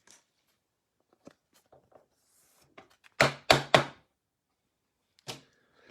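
Trading cards being handled on a table: faint clicks and rustles, then three quick thuds in close succession about three seconds in, and a softer one near the end.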